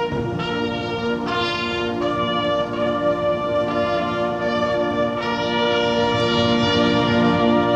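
Massed military bands playing, with brass to the fore, in sustained chords that change every second or so and swell slightly toward the end.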